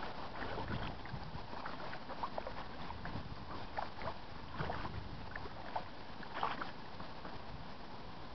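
Kayak paddle dipping into calm river water: irregular soft splashes and drips.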